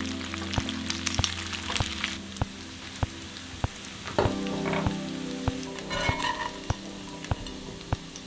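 Bacon strips frying in a cast-iron skillet: a steady sizzle with small crackles of spitting fat. Soft background music with an even tick plays underneath.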